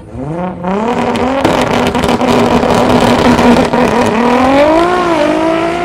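Two cars' engines at a drag-strip start line, a white Audi TT's among them. The revs climb quickly and are held steady, with a rapid crackle, for about three seconds, then rise again about four seconds in and settle at a higher pitch.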